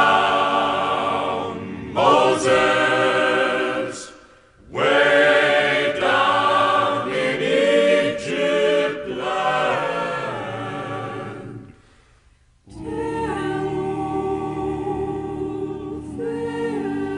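Choir singing a cappella in phrases, with two brief pauses; in the last few seconds the voices hold long, steady notes.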